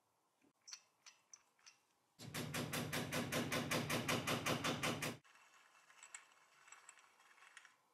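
Small hammer tapping rapidly on a metal projector part: an even run of about six light blows a second for some three seconds, starting about two seconds in. A few light metallic clicks come before it, and faint handling clicks after.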